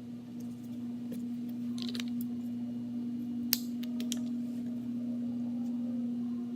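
Small hand-work on balsa wood pieces: a few light clicks and snips, the sharpest about three and a half seconds in, over a steady low hum.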